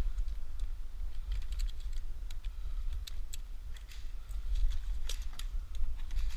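Irregular sharp clicks and taps, a few louder ones about a second and a half, three seconds and five seconds in, over a steady low rumble.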